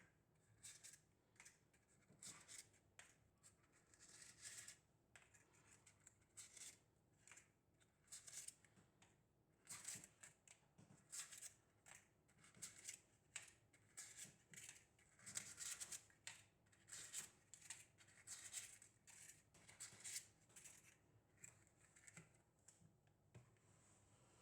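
Faint handling noises: an irregular run of short scrapes, roughly one or two a second.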